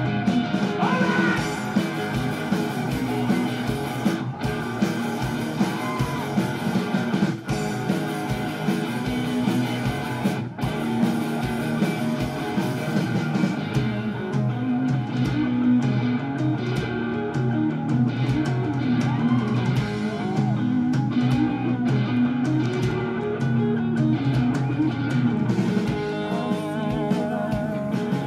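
A rock band playing live: electric guitars over a drum kit, without a break.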